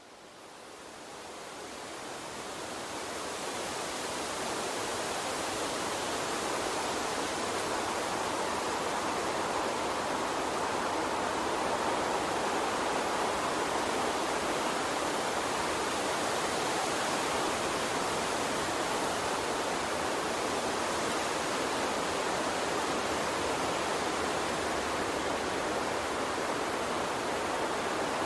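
Steady rushing of a flowing water stream, fading in over the first few seconds.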